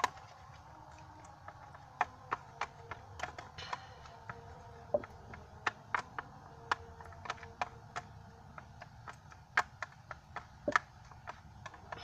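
A utensil stirring coloured water in a container, knocking against the sides in sharp, irregular taps about one or two a second.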